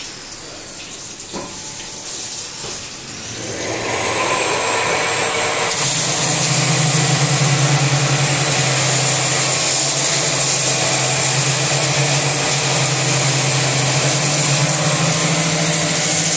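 CNC rotary-table polishing machine grinding forged mason blades. It runs quieter for about three seconds, then the grinding noise comes in loud and stays steady, with a low motor hum and a high whine over the hiss of the abrasive.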